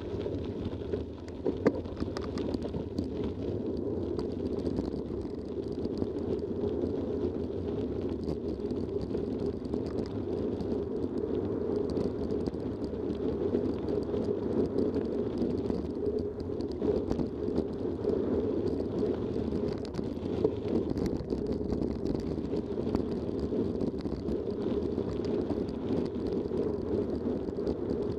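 Mountain bike rolling fast on a gravel track: steady tyre noise on the gravel with small rattles and clicks, and one sharper knock about two seconds in.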